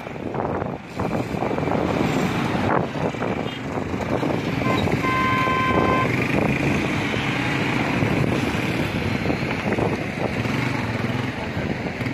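Motorcycle and car engines running as the vehicles pass close by, with a steady rumble and road noise. A vehicle horn sounds for about a second around the middle.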